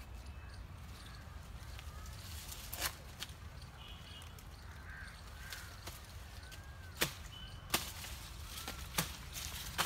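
Sharp cracks of wood from a tree being climbed, about six scattered snaps of twigs and branches, with small birds chirping in between.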